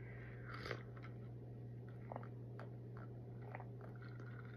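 Faint sips and swallows from a glass drink, with a few soft clicks, over a steady low electrical hum.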